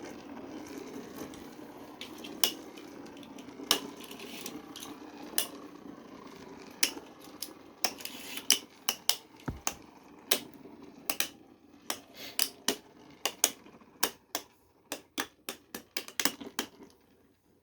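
3D-printed Beyblade spinning tops whirring in a plastic stadium, with sharp plastic clacks as they hit each other and the stadium. The whir fades while the clacks come quicker and more often in the second half as the tops lose spin, and it all stops just before the end.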